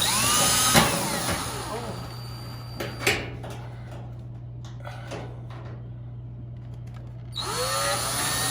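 Power drill driving screws as a dryer is put back together: a short run of rising and falling motor whine at the start, a knock about three seconds in, and another run starting near the end.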